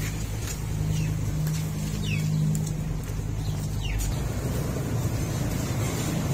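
A steady low mechanical hum, with a few short, high, falling chirps over it.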